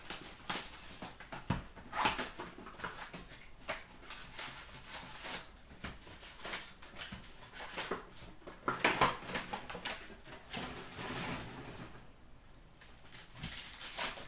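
Hockey card pack wrapper crinkling as it is opened, then cards sliding and flicking against each other as they are pulled out and shuffled by hand. Irregular rustles and snaps, loudest about nine seconds in and again near the end.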